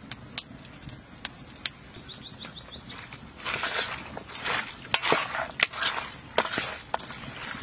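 A bare hand mixing and squeezing raw meat pieces with wet ground spice pastes in a steel bowl, giving irregular squelching bursts from about three and a half seconds in. A steady high insect drone runs underneath.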